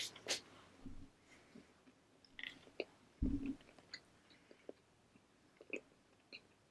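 Quiet close-up chewing of a toasted, buttered English muffin: scattered soft crunches and wet mouth clicks, with a duller thud a little past three seconds in.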